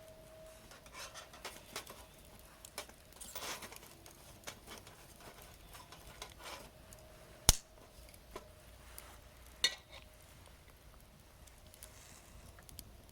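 Wood campfire crackling with scattered small pops, a sharp loud pop about seven and a half seconds in and another a couple of seconds later.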